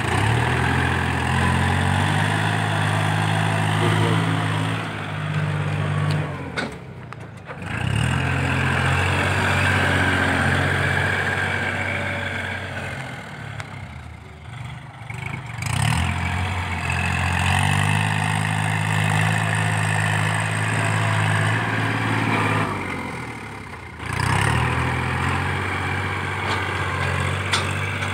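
Kubota L4018 compact tractor's diesel engine working as it pushes dirt with its blade, easing off three times, about 7, 14 and 23 seconds in, and coming back up to working speed each time.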